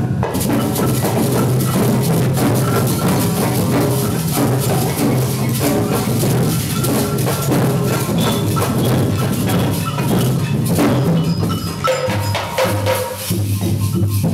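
A group of young children playing samba percussion together: a dense, uneven clatter of sticks tapping and clicking on small instruments over a steady low drum sound.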